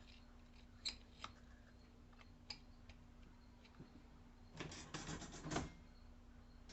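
Scattered faint clicks and ticks of small hard parts being handled, then a short, denser clatter about four and a half seconds in, over a steady low hum.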